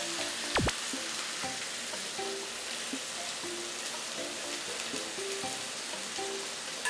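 Frying pan of stir-fried meat and onion sizzling steadily as beaten egg is poured in to bind it, with a light knock about half a second in.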